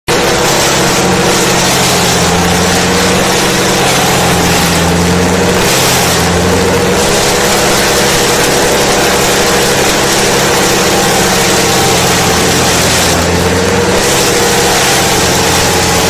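Vermeer BC1000 brush chipper running at working speed and chipping branches: a loud, steady engine drone mixed with the noise of wood being cut and chips blasting out of the discharge chute. The tone shifts briefly twice, about five and thirteen seconds in.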